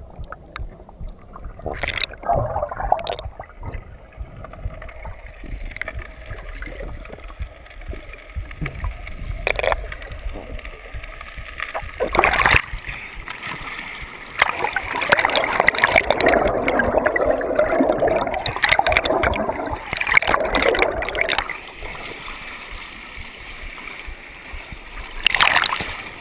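River rapids heard from a GoPro held in the water: a muffled bubbling rush while the camera is under the surface, then splashing and sloshing as water breaks over it at the surface. Sharp splashes come about 2, 10 and 12 seconds in and again near the end, and the rush is loudest in a stretch from about 15 to 21 seconds.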